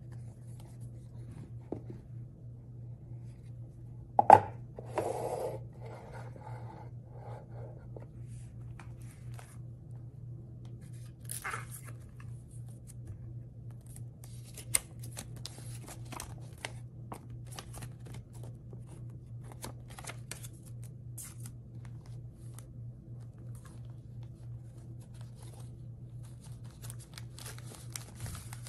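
Hands unpacking a cardboard sunglasses box: a sharp knock about four seconds in, followed by a short scraping rustle, then light rustling of card, paper and a plastic-wrapped cloth pouch with scattered small clicks and taps. A steady low hum lies underneath.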